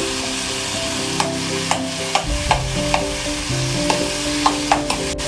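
A spatula stirring boiled potato into a thick masala frying in a pan. The frying sizzles steadily, and the spatula scrapes and knocks against the pan about eight times.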